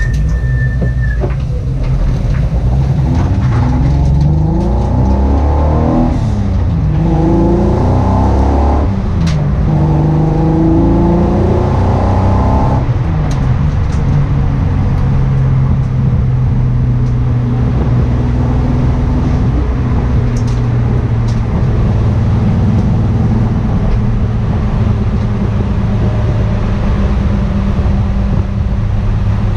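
A car engine with a misfire. The revs climb and drop three times in the first half, then it settles into a steady drone.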